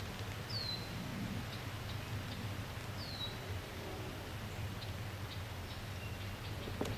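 A small bird calling twice, each a short high note sliding down in pitch, about two and a half seconds apart, with faint high chips between. A steady low rumble lies under it.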